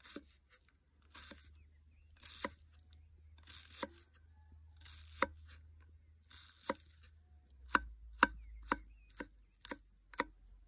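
Grohmann #4 survival knife dicing an onion on a wooden chopping board. Each cut is a slicing swish through the onion, ending in a sharp knock of the blade on the board, about once every second and a quarter. The last few seconds turn to quicker chops, about two a second.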